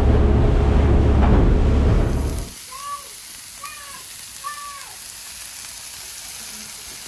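Boat running at speed, a steady low rumble from its 225 hp outboard with wind and rushing water. About two and a half seconds in it cuts to the quieter, even sizzle of fish frying on a gas barbecue grill and hotplate, with three short chirps in the middle.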